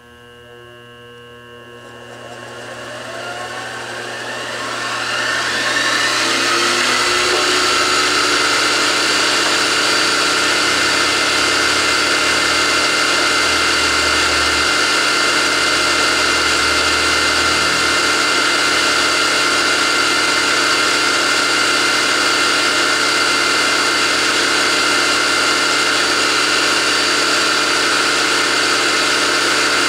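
Grizzly G0704 milling machine starting up and spinning up over about six seconds with a rising whine, then running steadily at speed with a high-pitched gear and motor whine while its spindle bearings and gears are being broken in.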